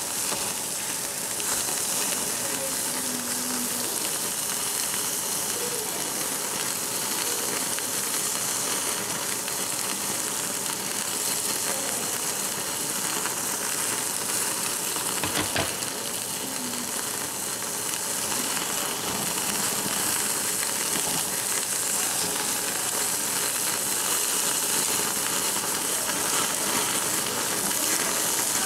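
Slices of Jeju black pork sizzling and crackling on a hot cast-iron grill plate, a steady frying hiss. A single sharp click about halfway through.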